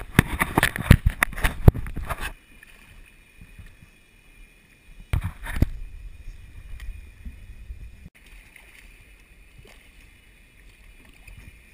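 Knocks and water slaps against a plastic kayak hull, dense for the first two seconds and again briefly about five seconds in, then low water and wind hiss with a faint steady high whine.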